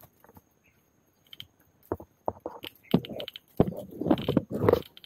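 Dry bamboo twigs and leaf litter crackling and rustling in irregular bursts as a hand pushes through a bamboo clump, busiest in the second half.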